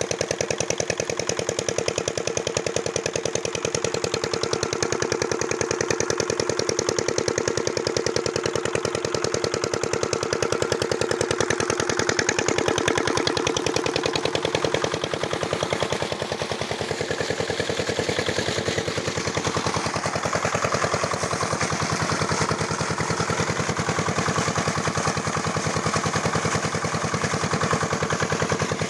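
Small single-cylinder diesel irrigation pump engine running steadily with a fast, even chugging, while water gushes and splashes from the pump's outlet pipe.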